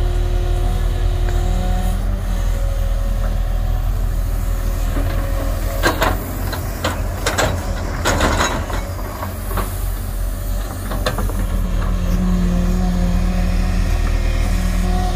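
JCB 140 tracked excavator's diesel engine running steadily under working load as it digs. Around the middle comes a run of sharp knocks and clatter from the bucket working through soil and stones.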